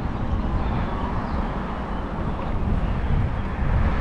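Steady low rumble of wind buffeting the action camera's microphone on a moving e-bike.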